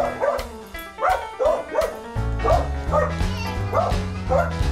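A dog barking over and over in short, quick barks, about two a second, over background music with a steady beat.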